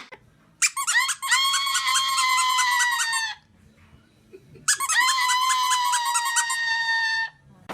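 Two long, high-pitched squeaks, each lasting about two and a half seconds and opening with a quick stutter of short notes, with a pause of about a second and a half between them.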